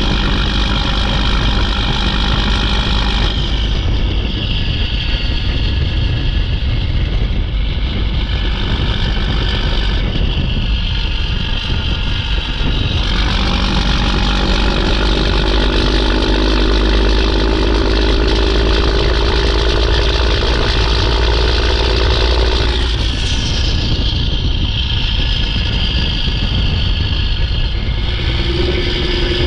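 Mack E7 inline-six turbo diesel in a CH612 dump truck running under load, its turbo whistling high above the engine. The engine note steps to a new pitch several times as gears are shifted, and near the end the turbo whistle winds down.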